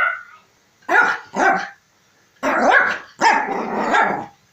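A dog barking and growling in four bursts: two short barks, then two longer, drawn-out growling barks.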